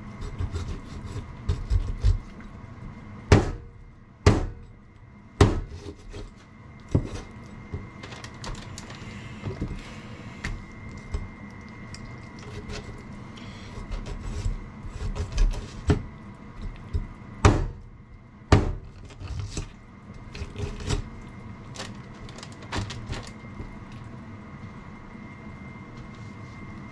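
Kitchen work: scattered sharp knocks and thuds, about a dozen loud ones and many softer ones, over a faint steady whine.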